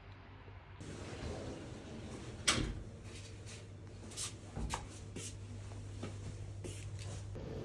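A few sharp knocks and clatters at a tiled entryway, the loudest about two and a half seconds in: footwear and a wooden shoe cabinet being handled while getting ready to go out, over a low steady hum.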